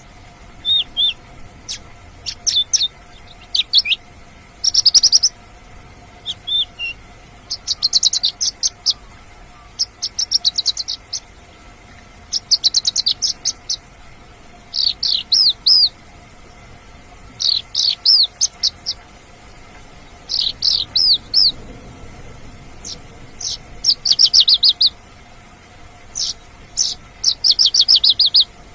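Mongolian lark singing: quick, rapidly repeated trilled phrases, each about half a second to a second long, coming one after another every second or two.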